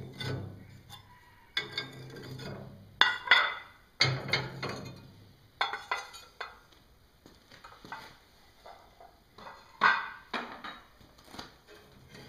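Cast iron cook-stove lids and top plates being lifted off with a lid lifter and set down: a run of irregular metallic clanks and rattles, loudest about three seconds in and again near ten seconds.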